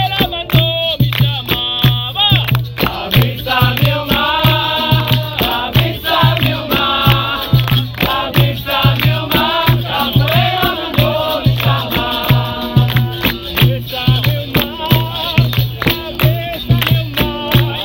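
Live capoeira roda music: voices singing together over a steady percussion rhythm, with a low drum-like pulse several times a second and sharp rattling clicks, as from berimbau with caxixi and hand percussion.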